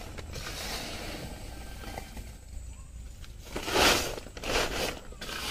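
Plastic sack rustling and crinkling as it is handled, with two louder scrunches a little past halfway through.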